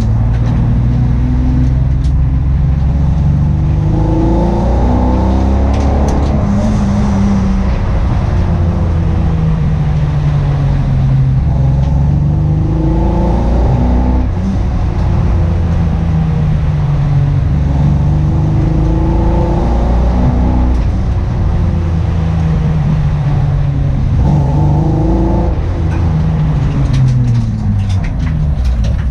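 Car engine running under load, its pitch repeatedly climbing and then dropping back, in a car with an engine misfire.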